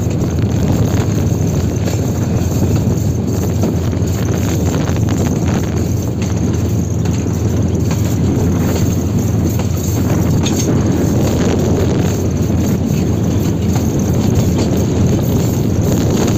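Diesel locomotive running light on a curving line: a steady rumble of the engine and wheels on the rails, with scattered faint clicks from the wheels on the track.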